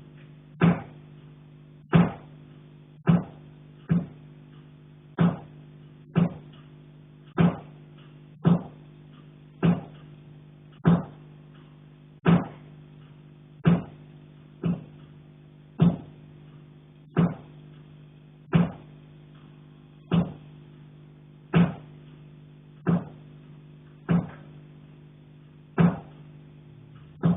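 Knocking on a pipe, about one knock every second or so, each knock ringing briefly with a clear tone.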